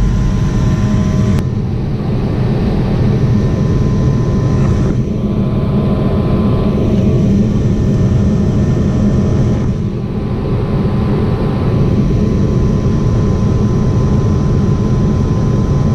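Lennox ML193 gas furnace running through a heating cycle: a steady, loud rush of burners and fans with a steady whine over it. The draft is holding, and the short cycling is put down to a faulty pressure switch.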